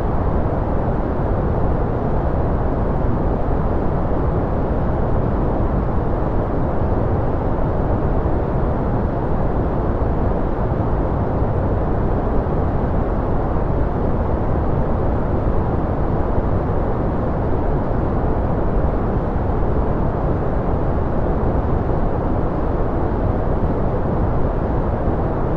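Steady white-noise sleep track: an even, unchanging rushing noise with most of its weight in the low end and little treble.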